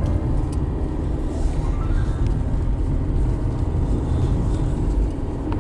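Steady rumble of a car driving, heard from inside the cabin: engine and tyres on asphalt.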